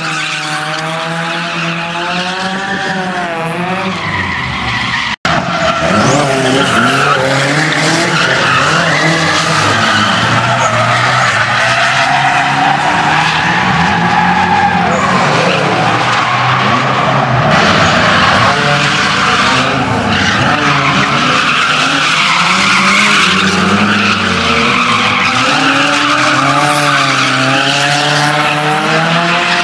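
Drifting cars, the SR20-engined Mk2 Ford Escort among them: the engine revs keep rising and falling over steady tyre squeal as the cars slide round on the tarmac. The sound drops out for an instant about five seconds in.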